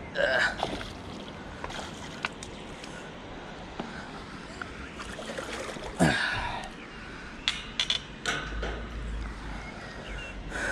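Water splashing and sloshing as a small pike is drawn into a landing net and held there, with a few sharp knocks.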